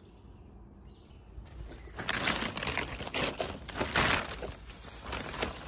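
Crinkling and rustling of a plastic tarp bag and the dry hay inside it as hay is grabbed out by hand. It comes in uneven bursts starting about two seconds in, loudest around four seconds in.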